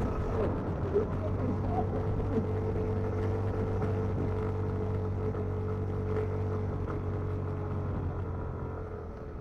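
An engine running steadily with a low, even hum and some wind rumble on the microphone, easing off near the end.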